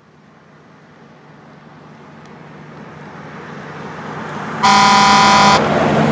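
A road vehicle approaching, its road noise growing steadily louder, then one loud horn blast of about a second, about four and a half seconds in, after which the noise starts to fade as it passes.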